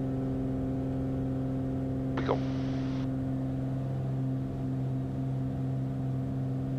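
Beechcraft Bonanza's flat-six engine and propeller at full takeoff power, a steady drone through the takeoff roll and lift-off.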